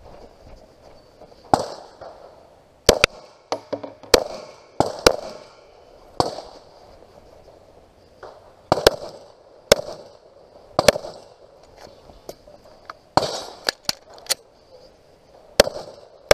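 Semi-automatic pistol firing a string of about fourteen shots, some in quick pairs and others single with pauses between, each sharp crack followed by a short echo.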